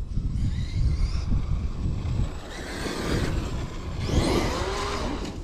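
Brushless electric motor and drivetrain of an 8S Arrma Outcast EXB RC truck, geared 25-tooth pinion to 39-tooth spur, whining as it accelerates. The whine rises in pitch briefly about half a second in and again, louder and higher, about four seconds in, over a low rumble.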